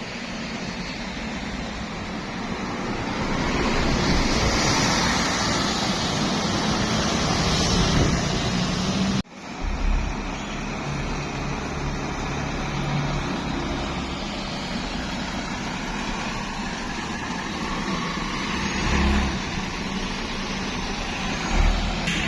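Heavy road traffic passing close by: the engine and tyre noise of large vehicles. It swells as a vehicle goes past from about four to eight seconds in, breaks off sharply for an instant about nine seconds in, then carries on steadily.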